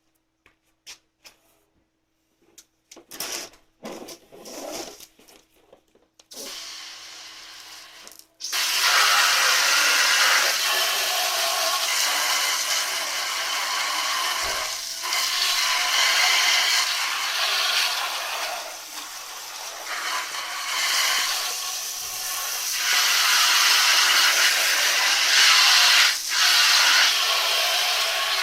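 A few knocks and rubbing sounds from metal parts being handled, then from about eight seconds a loud, steady hiss of water spraying from a hose, washing soot off a metal wood stove.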